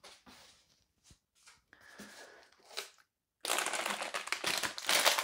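Unpacking sounds: light rustling and small knocks of parts and packing in a cardboard box, then, from about three and a half seconds in, loud plastic bag crinkling as wrapped parts are handled.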